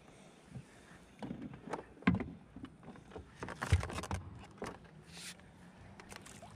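Irregular knocks and short rattles on the hull and fittings of a plastic fishing kayak, loudest about two seconds in and again just before the four-second mark.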